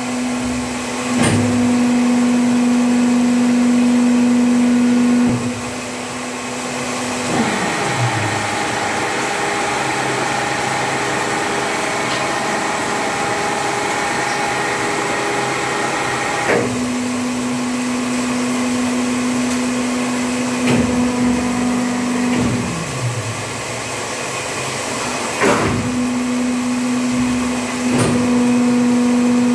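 Plastic injection moulding machine running through its moulding cycle: a steady hydraulic hum that changes pitch as the machine moves from one stage to the next, a falling whine twice, and several sharp clunks as the mould opens and closes.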